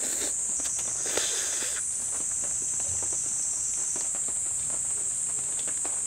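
Noodles being slurped from chopsticks for about a second, starting about half a second in, with a few small clicks. Under it runs a steady high-pitched chorus of night insects.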